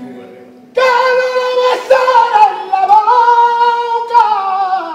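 A male flamenco singer sings a high, long-drawn phrase without accompaniment, coming in loudly just under a second in. He holds the notes, with the pitch wavering and turning in ornaments.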